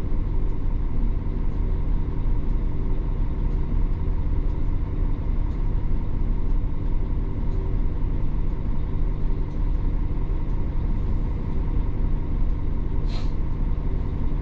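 Diesel coach engine idling steadily, heard from the driver's cab of the stationary bus. Near the end comes one short, sharp hiss of released air.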